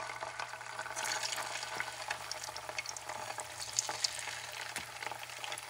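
Small whole fish frying in hot vegetable oil in a pan: a steady sizzle scattered with small crackles and pops.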